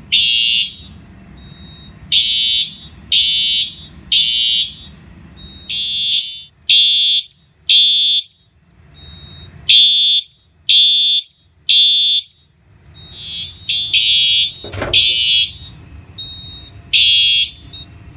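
FCI HES STW horn strobe sounding its default horn tone, a loud high-pitched electronic blast, coded to code 3: three short blasts, a pause, then three more, repeating. One sharp knock about three-quarters of the way through.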